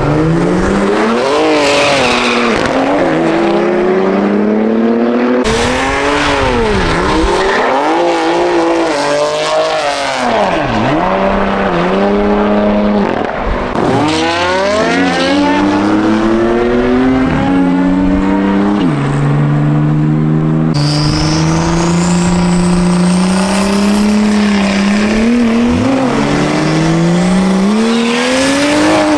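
Drag-race cars launching and accelerating hard down the strip, several runs cut back to back: engines revving, pitch climbing and falling back again and again. In the last run a thin high whine rises along with the engine.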